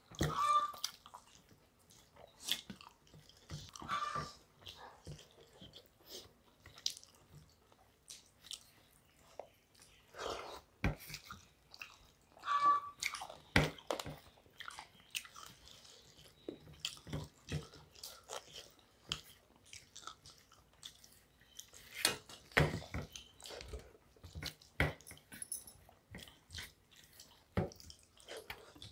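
Two people eating rice and curry with their hands from steel plates: chewing with irregular short clicks and scrapes of fingers mixing rice on the metal.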